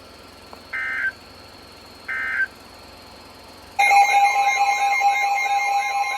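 Two short bursts of EAS digital data tones, about a second apart, closing the flash flood warning message. About 4 seconds in, a loud Emergency Alert System attention signal starts: a steady two-tone alarm with a warbling, siren-like tone over it.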